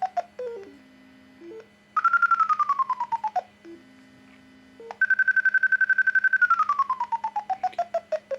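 Electronic audio tone generator giving RICO-style signal audio, in the manner of a variometer: rapid short beeps, about ten a second, that slide down in pitch twice, about two seconds in and again after about six seconds. Between the runs of beeps are lower steady tones that step in pitch.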